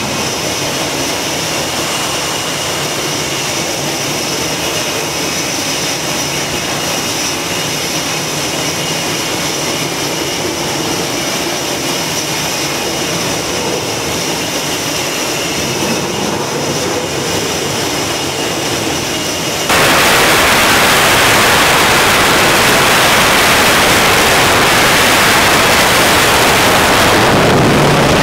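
Twin jet engines of a Super Hornet fighter running on a carrier catapult with a steady high whine. About twenty seconds in, the noise jumps suddenly to a much louder rush as the jet goes to full power for the catapult launch, and it falls away near the end.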